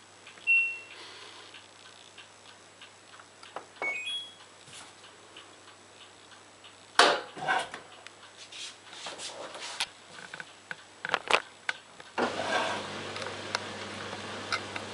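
LG F1443KD washing machine's control panel: a single button beep, then a short rising three-note chime, followed by a run of clicks and knocks from the machine. About twelve seconds in, a steady rushing noise with a low hum sets in as the machine starts working.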